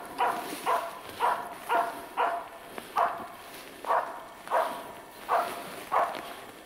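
Karelian-Finnish Laika hunting dog barking steadily, about two barks a second, at a game bird it is holding up in the trees. This is the bark by which it signals the hunter that the bird is found.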